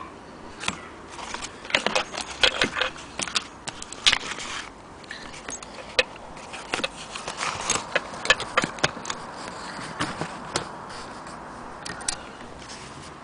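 Hands handling a stitched leather piece close to the microphone: irregular scrapes, rustles and sharp clicks with no steady rhythm.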